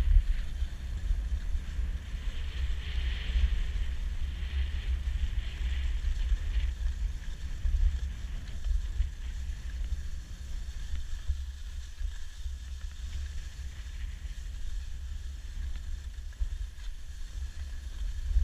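Wind buffeting the microphone of a skier's body-worn camera as they glide down a groomed piste, a steady low rumble, with a faint hiss of skis sliding on packed snow.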